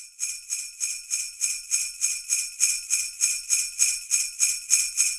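Sleigh bells shaken in a steady, even rhythm, about three shakes a second.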